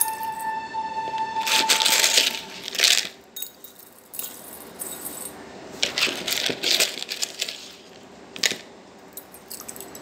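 Small coloured aquarium pebbles clinking and rattling against a glass bowl as they are stirred and rinsed by hand in water, in several short bursts.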